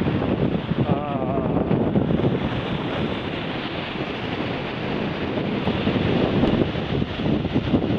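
Wind blowing on the microphone over choppy sea waves washing and splashing close by, a steady rough rush. A brief wavering tone sounds about a second in.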